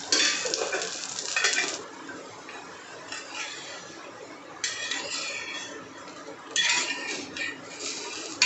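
Steel spatula scraping around the edge of a dosa on a hot iron tawa to loosen it for flipping, in about three spells of scratchy strokes, with a sharp metal click near the end.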